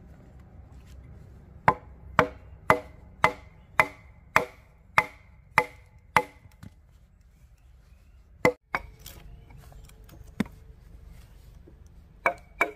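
A machete blade chopping into the end of a wooden log to cut a notch. There are nine even chops about two a second, each with a short ring, then two single chops a couple of seconds apart, and a quicker run of chops near the end.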